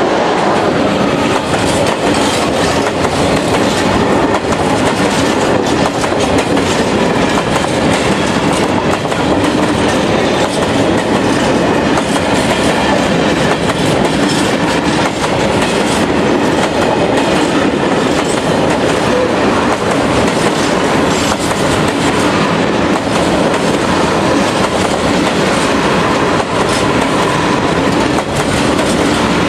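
Freight train of covered hopper wagons rolling past at close range: a steady, loud rumble of steel wheels on the rails, with repeated clicking as the wheels cross the rail joints.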